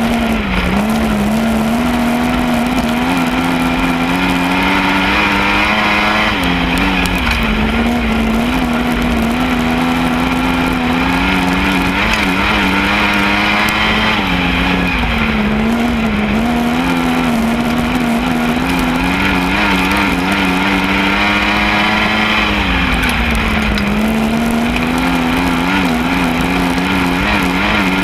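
Lightning Sprint race car engine running hard under race conditions, its pitch dipping briefly about every eight seconds and climbing back, with a low rumble beneath.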